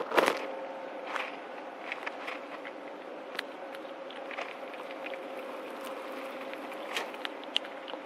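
Gray squirrel cracking and chewing seeds at a feeder: scattered small crunchy clicks, a few sharper ones at the start and near the end, over a steady background hiss and faint hum.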